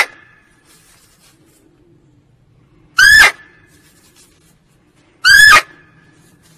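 Female muntjac (barking deer) giving short, sharp, high-pitched barks. The tail of one is heard at the very start, then two full barks follow, about three seconds in and again a little after five seconds.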